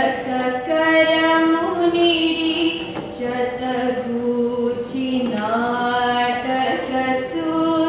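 A young woman singing a Carnatic song solo, holding notes and sliding between pitches, over a steady drone note.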